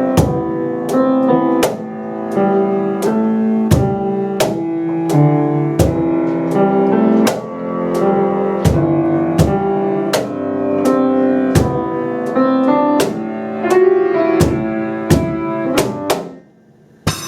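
Instrumental piece played live on piano, with sharp percussion strikes keeping a steady, driving beat. The music breaks off abruptly near the end for a short pause, then comes back in.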